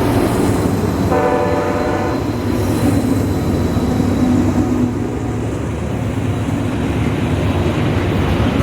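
Locomotive air horn sounding one blast of about a second, about a second in, over the steady rumble of a train passing close by.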